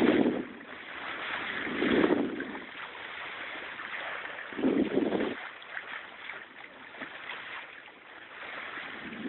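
Wind on the microphone and water washing around a boat at sea, with three short, louder low swells of sound in the first five seconds.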